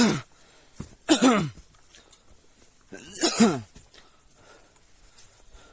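Three loud, breathy vocal exhales, each about half a second long and falling in pitch, from a person winded by an uphill hike.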